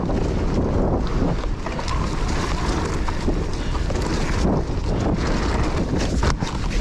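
Wind rushing over a GoPro Max action camera's microphone as a mountain bike rides down a dirt trail, with steady tyre and trail noise and a few sharp knocks from bumps.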